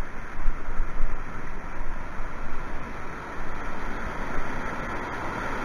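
Steady rushing of white water pouring over a river weir, with low wind buffeting on the microphone.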